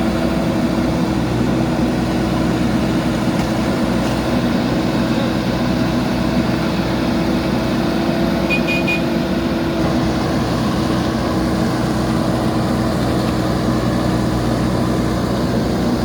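Diesel engine of a JCB backhoe loader running steadily at an even pitch, with a brief high chirp about eight and a half seconds in.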